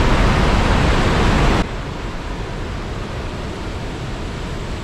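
Iguazu Falls' falling water: a loud, steady rush of noise that drops abruptly to a quieter steady rush about a second and a half in.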